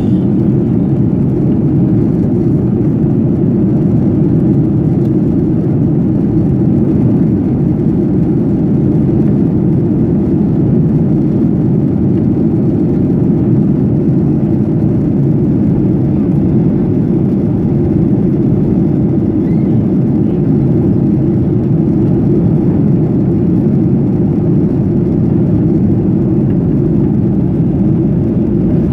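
Steady cabin noise inside a Ryanair Boeing 737 descending towards landing: a low, even drone of the jet engines and the rush of air along the fuselage, with no change in pitch or level.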